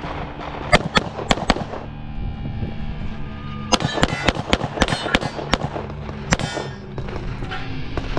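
Pistol shots fired in fast strings on a USPSA stage: four shots within about a second, then after a short pause a longer run of shots between about four and six and a half seconds in. Some are followed by a metallic ring.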